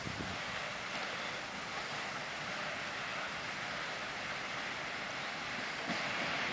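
M62 diesel locomotive, with its two-stroke V12 engine, hauling tank wagons and approaching from a distance: a steady, even rumble and hiss that grows a little louder about six seconds in.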